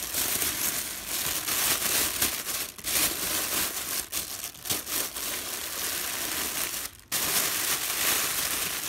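Clear plastic bag crinkling and rustling as it is pulled off a football helmet, with a brief pause about seven seconds in.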